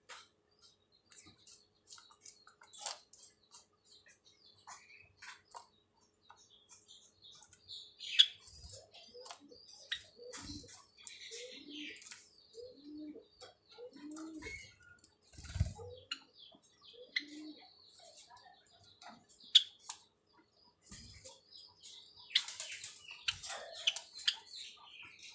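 Caged white Java sparrows giving short high chirps and clicks while they feed at a tub of soft egg food, with wing flutters. A run of low notes about a second apart and a few dull thumps come in the middle.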